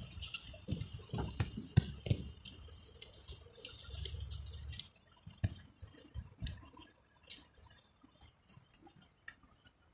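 Irregular light clicks and small knocks of a car alternator's carbon brush holder and housing being handled and fitted by hand. The clicks are busy for the first half, then sparse after about five seconds.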